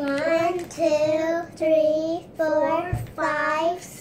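Children counting aloud together in a drawn-out sing-song chant: five long, evenly pitched syllables, about one every 0.8 s. A soft thump about three seconds in.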